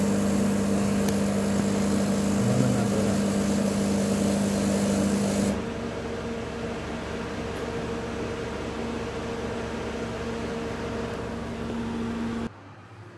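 Melag Vacuklav 31B steam autoclave running its fractionation (vacuum) phase: a steady machine hum with a loud rushing hiss for about the first five seconds, then a quieter steady hum that drops away suddenly near the end.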